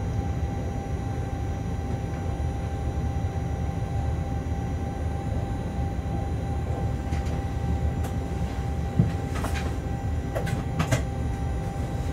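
Shunting locomotive rolling slowly along yard track, heard in its cab: a steady low rumble with a constant hum, and a few sharp clicks and knocks between about seven and eleven seconds in.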